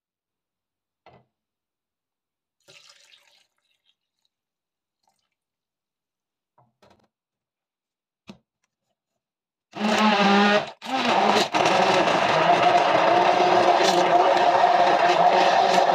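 Electric hand blender switching on about ten seconds in, stopping for a moment and starting again, then running steadily as it churns milk and fruit in a plastic jug. Before it starts there are only a few faint knocks.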